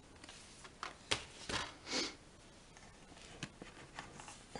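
Faint handling noise of a plastic Blu-ray case being put back on a shelf, with a sharp click a little over a second in and short rustles and scrapes around it, including a brief breathy rush about two seconds in.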